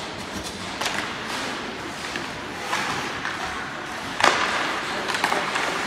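Ice hockey play: sharp knocks and clacks of sticks and puck at irregular intervals, the loudest a hard hit about four seconds in, over steady rink noise.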